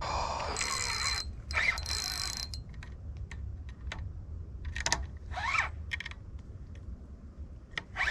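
Spinning fishing reel being cranked, its gears ratcheting and clicking, with a few short squeaks, while the line is snagged on a mangrove branch.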